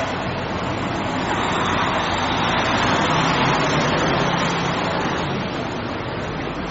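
Street traffic: a passing vehicle's engine and tyre noise swells to a peak about three seconds in and then fades, over a steady low hum.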